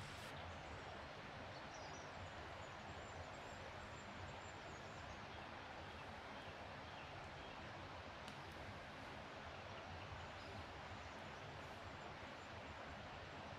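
Faint, steady outdoor forest ambience: an even hiss with no distinct events.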